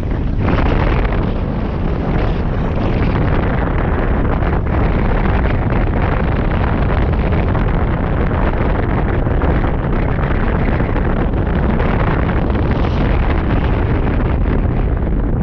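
Steady, loud wind rush and buffeting on the microphone of a camera mounted on a hang glider in flight.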